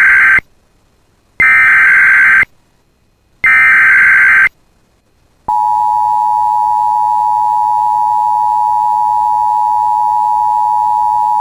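Emergency Alert System SAME header: the tail of one and then two more harsh one-second bursts of digital data tones, about a second apart, followed about five and a half seconds in by the steady EAS attention tone that signals an alert is about to be read.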